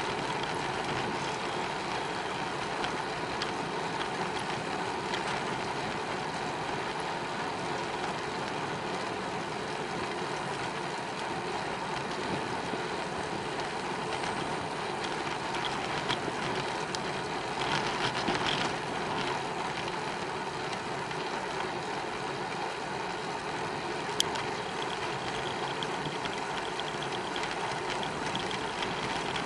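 Steady noise of a bicycle being ridden: tyres on the paved path and wind on the microphone, with a louder rattly patch about two-thirds of the way through and a single sharp click shortly after.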